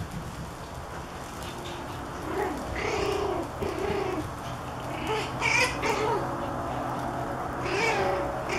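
Pomeranian puppies vocalising as they play: a run of short, arched whining calls, then louder, higher-pitched yips about five and a half and eight seconds in.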